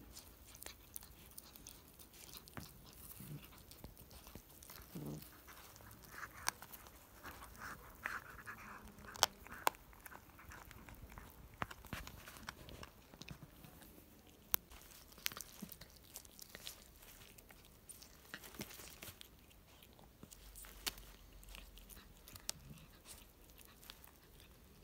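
Domestic cat eating a dead pigeon, chewing and biting at the raw flesh, with irregular sharp clicks.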